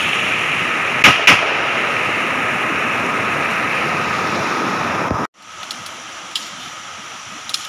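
Rushing stream water, with two sharp rifle shots in quick succession about a second in. The water sound stops abruptly near the end, leaving a quieter background with faint clicks.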